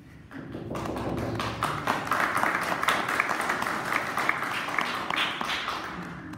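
Audience applauding: many hands clapping, swelling within the first second and dying away near the end.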